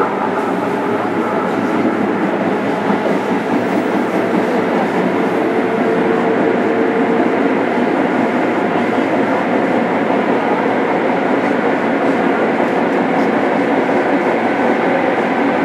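Onboard running sound of a JR Kyushu 103 series 1500-subseries motor car, MoHa 102-1506, under way: a steady, loud rumble of wheels and MT55 traction motors with a faint motor hum.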